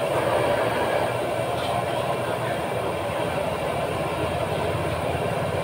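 Fried rice being stir-fried in a wok over a gas burner: the burner's steady roar with the metal spatula scraping and rattling in the wok.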